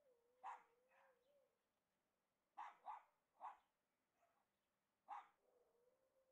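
A dog barking in short single barks, about six in all, in twos and threes with pauses between. A faint, wavering steady tone lies underneath.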